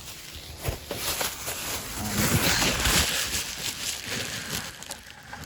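Packaging rustling as a boxed fire alarm horn strobe is handled and unpacked, with a few light knocks, loudest about two to three seconds in.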